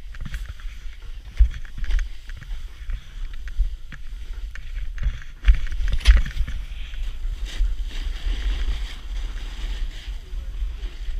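Snowboard sliding through snow, a steady hiss of board on snow over low wind rumble on the action-camera microphone. There are sharp knocks about one and a half seconds in and again around six seconds in.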